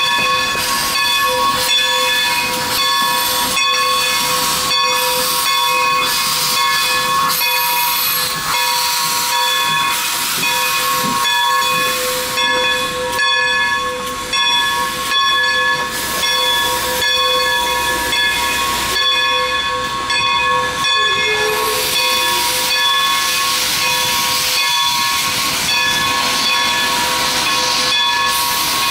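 Standing steam locomotive No. 40, a 2-6-0, hissing steam with a steady high whine underneath and short regular beats about once a second. The hiss grows stronger toward the end as steam blows out beside the engine.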